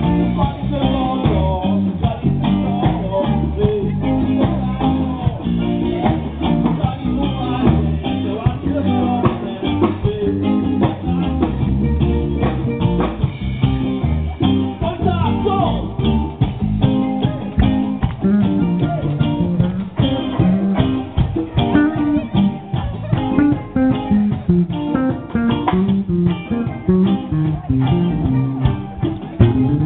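Live band music: electric guitar over bass and drums, with a steady beat.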